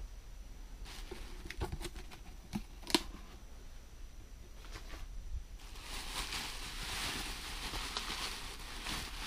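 A few light knocks and taps as a cardboard box is lifted off, then, from about halfway through, continuous crinkling and crackling of plastic bubble wrap being handled and pulled open.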